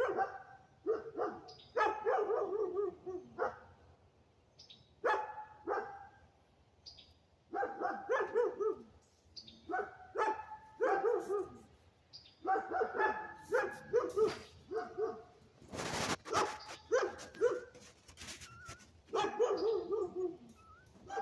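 A domestic animal crying over and over in short, wavering calls, bunched in clusters a second or two apart. There is a brief rustle about sixteen seconds in.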